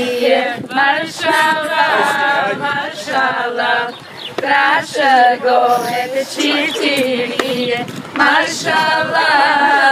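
Several voices singing together unaccompanied, a folk wedding song in held, wavering phrases.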